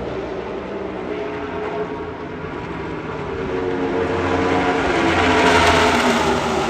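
Stock car engines at full speed on the track, the sound swelling as the cars come past to its loudest about five and a half seconds in, then easing off.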